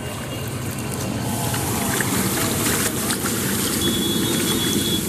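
Floodwater splashing and sloshing, with a vehicle engine running under it as vehicles drive through the flooded street.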